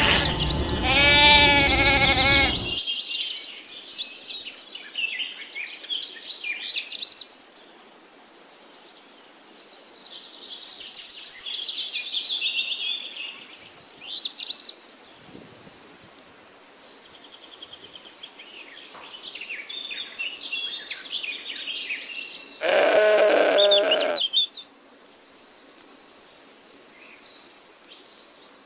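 A young goat kid bleating: one call at the start that stops about three seconds in, and a second shorter bleat about 23 seconds in. Between the bleats, birds chirp and trill throughout.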